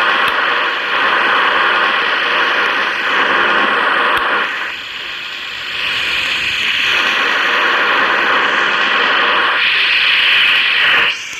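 Ventisol Power 70 wall fan running, a loud rushing hiss of air that rises and falls, dipping about five seconds in and again near the end.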